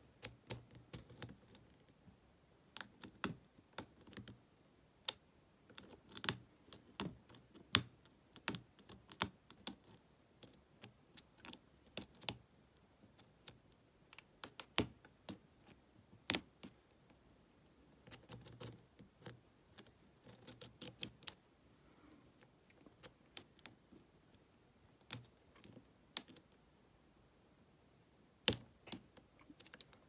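Lock pick and tension wrench working the pin tumblers in the keyway of a brass Lockwood 120N padlock: irregular small metallic clicks and scrapes, coming in clusters with short pauses.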